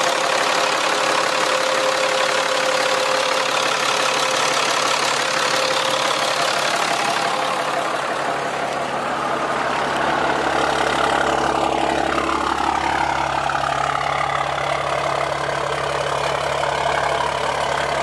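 6.7 Cummins straight-six turbodiesel idling steadily, its BorgWarner S369SXE turbo fitted with a T51R-modified compressor cover that is meant to make it whistle. About eight seconds in the sound turns deeper, nearer the bed-mounted exhaust stack, and a couple of falling whistle-like tones come a little past the middle.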